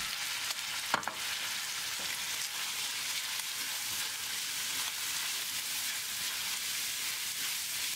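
Garlic scapes, wood ear mushrooms and sliced pork sizzling in hot oil in a wok as they are stir-fried with a spatula: a steady high hiss, with one short sharp sound about a second in.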